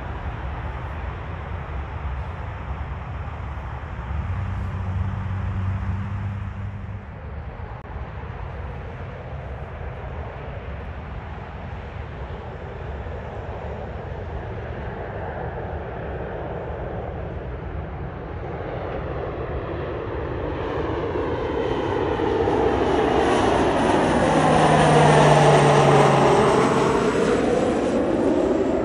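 A business jet on final approach, its engine noise building through the last third and loudest a few seconds before the end as it passes low overhead. A high turbine whine slides down in pitch as it goes by.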